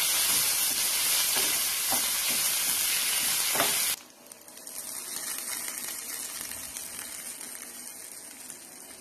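Curry leaves, dried red chillies and mustard seeds sizzling loudly in hot oil in a small steel tempering pan, with a few sharp pops. About four seconds in it cuts to a much quieter sizzle that slowly dies away as the hot tempering sits on the coconut chutney.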